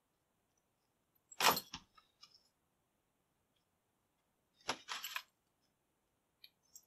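Small metal keys jangling and clicking as they are handled, in two short bursts about a second and a half in and about five seconds in, with a few faint ticks near the end.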